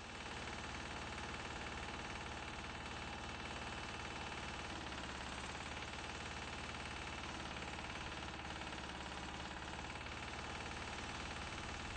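Small engine of a yellow rail-mounted track maintenance machine running steadily.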